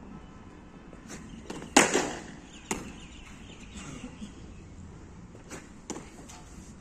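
Cricket batting practice: a sharp knock of bat on ball a little under two seconds in, then a second, lighter knock about a second later, and a few faint taps near the end.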